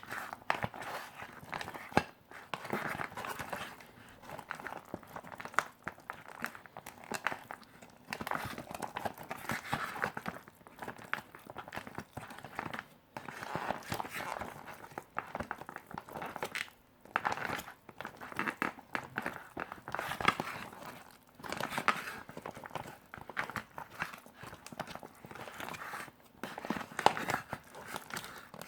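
Plastic and foil ration packets crinkling and rustling as they are handled, in uneven bursts with short pauses and scattered small clicks.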